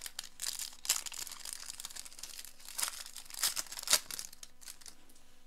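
Wrapper of a football trading card pack crinkling and tearing as it is opened, in irregular rustles with a few sharper crackles, dying down about four seconds in.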